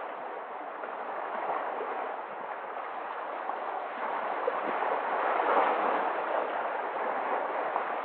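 Sea waves washing in, a steady rush of surf that swells a little past the middle.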